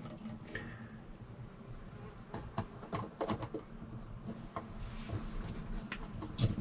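Plastic trim ring of a solar vent fan being handled and pressed into place against a fibreglass ceiling: a scatter of light clicks and taps.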